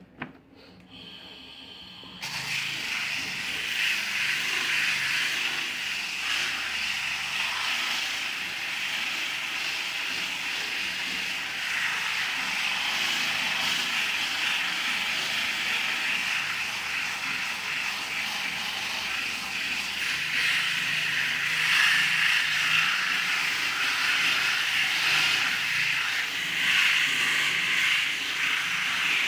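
Handheld electric disc sander running steadily, its pad sanding across a pine board. It starts up about two seconds in.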